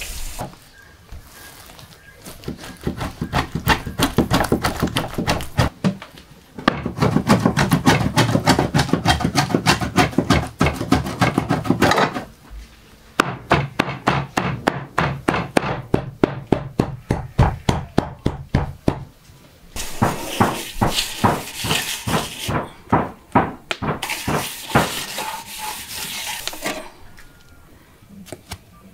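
Large cleaver chopping raw meat on a wooden board, mincing it by hand: fast, even blows about four a second, in several bouts with short pauses.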